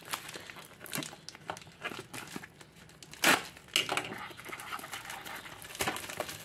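White plastic bubble mailer being torn open and crinkled by hand: a run of scratchy crackles with one louder, short tearing sound about three seconds in.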